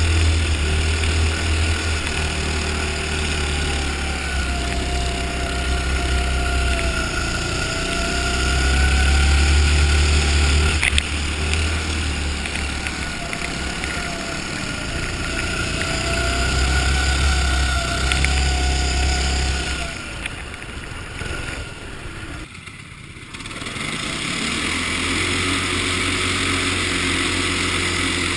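Go-kart engine running at speed, its pitch rising and falling as the kart accelerates and eases off through the corners. The sound drops away briefly about three quarters of the way through, then picks up again.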